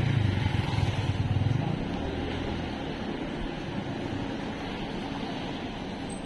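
A motor scooter's small engine passing close by, loudest over the first two seconds. It then fades into a steady low hum of car engines and street noise.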